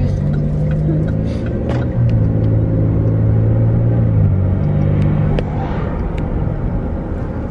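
Car engine and road rumble heard from inside the cabin. The engine note drops and grows louder about two seconds in, then rises again about two seconds later.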